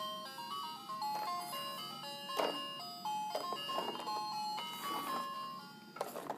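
Fisher-Price Little People Lil' Movers school bus toy playing an electronic tune through its small speaker: a beeping melody of short stepped notes, with a few knocks mixed in. The tune stops near the end.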